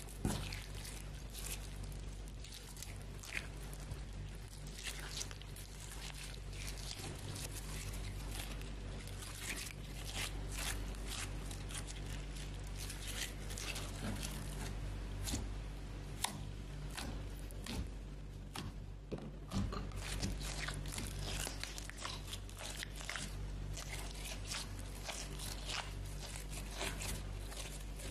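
Hands squishing, stretching and folding slime, giving a dense, irregular run of small wet clicks and pops.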